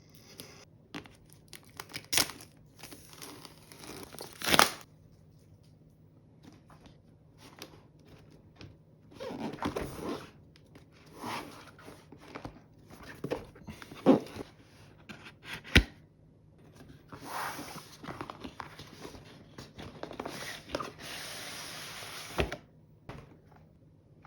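Packaging being torn and crinkled open by hand: irregular stretches of tearing and rustling, with a steadier tearing stretch near the end. Several sharp knocks and taps fall among them, the loudest about four and a half, fourteen and sixteen seconds in.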